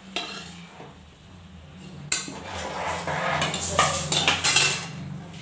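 A long metal spoon scraping and clinking against a steel kadai (wok) as it stirs in the hot oil, with a single click near the start. The scraping clatter starts about two seconds in and grows louder, over a steady low hum.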